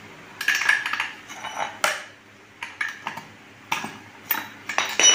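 Metal spark-plug spanner clinking against a chainsaw's spark plug and engine as the plug is being removed: a run of sharp, irregular clicks and clinks, the loudest near the end with a short metallic ring.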